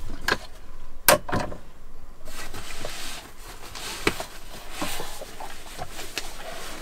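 A few sharp knocks and clunks, then steady background hiss with scattered taps and clicks.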